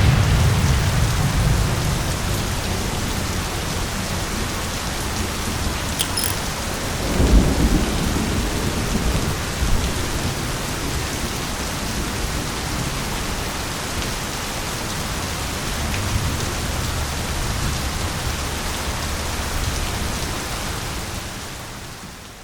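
Steady heavy rain falling, with thunder rumbling at the start and again about seven seconds in.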